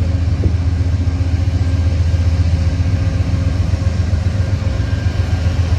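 Amtrak California Zephyr passenger train, hauled by P42 Genesis diesel locomotives, rolling past with a steady low drone.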